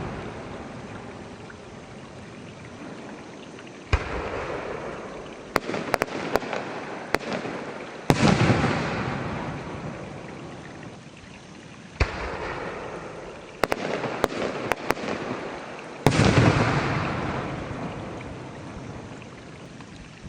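Japanese aerial firework shells going off: sudden booms about every four seconds, each trailing off in a long rolling echo, with bursts of sharp crackling pops in between.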